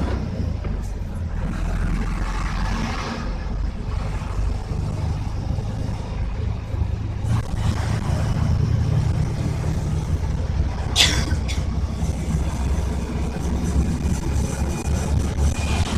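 A steady low engine rumble, like a motor vehicle running, with a brief sharp clatter about eleven seconds in.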